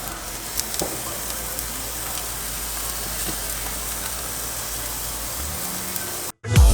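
T-bone steaks sizzling on a grill: a steady hiss with a low rumble underneath, cut off abruptly near the end as loud music with a beat starts.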